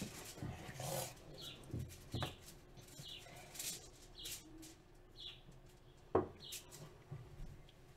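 Hands patting and pressing salt dough on a silicone baking mat over a counter, with a few dull thumps, the loudest about six seconds in. Short, high chirps come and go throughout.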